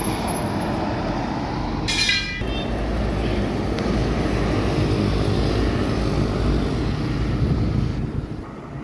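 Road traffic passing close by: buses and a heavy cargo truck go by with a loud, low rumble of engines and tyres, followed by motorbikes as the rumble fades near the end. A brief high-pitched tone sounds about two seconds in.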